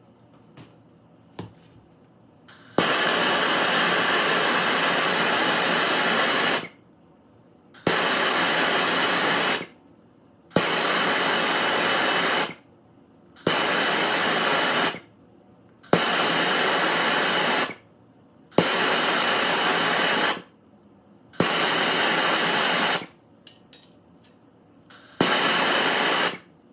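Handheld soldering torch fired in eight bursts of steady rushing hiss, each one to four seconds long and starting with a sharp click. The torch is being pulsed on and off to heat a brass fitting for sweating.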